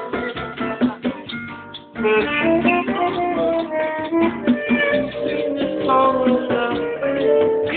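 Music played on guitar: quick plucked notes at first, then about two seconds in the sound grows fuller and louder with held notes over the strumming.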